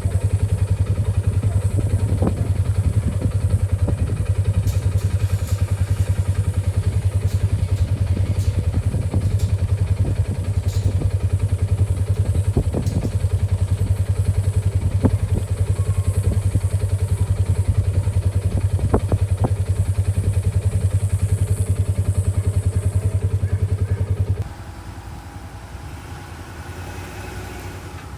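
An engine running steadily at a constant speed with a low hum, with scattered knocks and clatter over it. It shuts off abruptly near the end.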